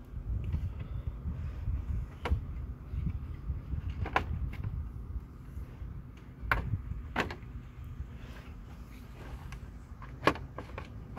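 Scattered sharp clicks and knocks, about five of them, from parts being worked by hand beside the radiator and fan shroud in a car's engine bay, over a low rumble.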